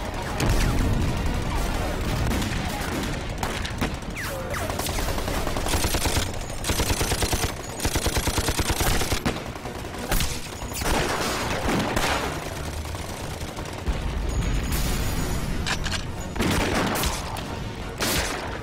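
Battle gunfire: scattered rifle shots throughout, with two fast machine-gun bursts about six to nine seconds in.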